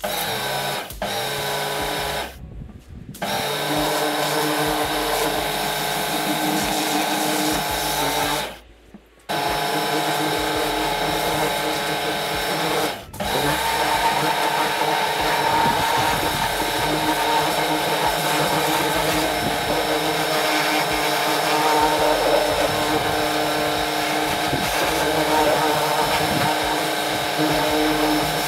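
Electric pressure washer running, its motor humming steadily under the hiss of the high-pressure water jet blasting old mortar off a steel cement mixer drum. It stops briefly three times and starts again.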